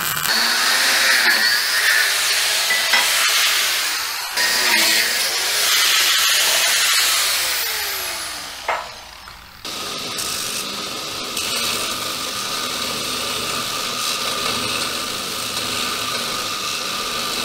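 For about the first ten seconds, harsh metalworking noise from MIG welding and an angle grinder. Then, after a sudden change, a bench belt grinder runs steadily with a constant motor hum while a steel piece is held against the belt.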